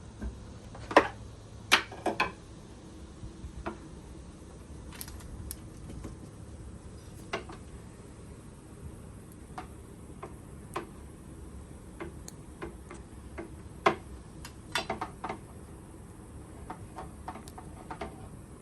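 Scattered sharp clicks and light knocks at irregular intervals. The loudest come about a second in, around two seconds in, and near fourteen seconds, with a quick cluster of several around fifteen seconds.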